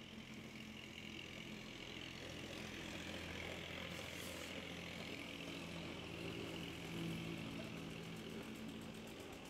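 A motor idling steadily with a low hum, a little louder in the middle.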